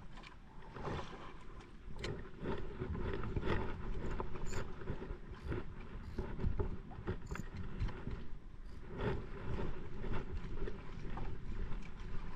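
Small fishing boat at sea: water splashing and slapping against the hull, with irregular knocks.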